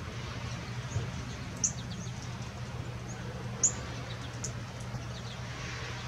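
American goldfinches giving a few short, high chirps, two of them louder than the rest, over a steady low hum.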